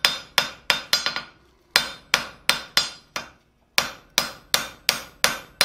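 Hand hammer striking a hot steel bar on an anvil, about three blows a second in three runs broken by two short pauses, each blow with a brief metallic ring. This is the end of a small mortice drift being forged down and squared up.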